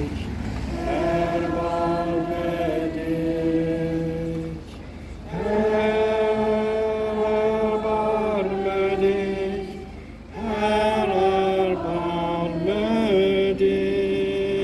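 Slow chant-like singing in long held notes, sung as three phrases with short pauses about five and ten seconds in.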